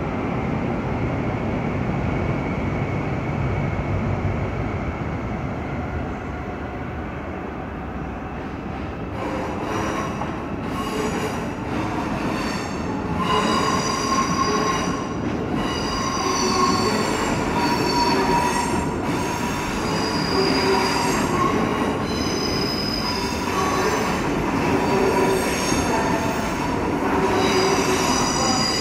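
ICE high-speed train rolling slowly along the platform tracks. It starts as a low rumble, and from about nine seconds in the wheels squeal in high, drawn-out tones with scattered clicks from the track.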